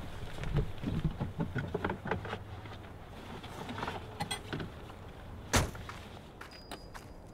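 Rummaging through things in a car boot: a run of small knocks, rustles and clatters, with one sharper knock about five and a half seconds in.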